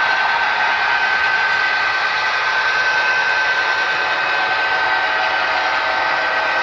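Model train running past: the steady rolling noise of its wheels on the track, with a steady whine running through it.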